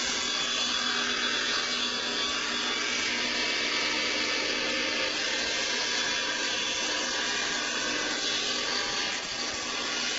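Woodworking power saw running steadily while making a bevel cross cut in wood, a constant mix of motor whine and airy noise that eases slightly near the end.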